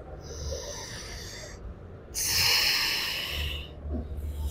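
A woman's heavy breathing close on a body mic, straining through a set of prone dumbbell hamstring curls: two long breaths, the second, about two seconds in, the louder.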